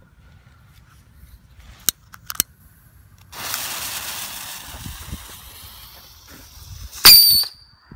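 Babypijl Fluit whistling mini rocket being fired: two sharp clicks as it is lit, then the fuse and motor hiss for about four seconds as it takes off, ending near the end in a short, loud, high whistle lasting about half a second.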